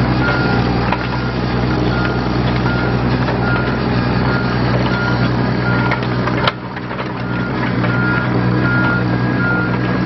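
John Deere 17D mini excavator's diesel engine running steadily as the machine tracks, its travel alarm beeping about twice a second. A sharp clack sounds a little after six seconds in, and the beeping pauses for about a second before it resumes.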